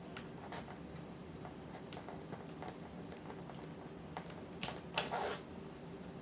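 Small Phillips screwdriver working tiny screws out of a laptop screen's side mounts: faint scattered ticks and clicks, with a couple of louder clicks about four and a half and five seconds in.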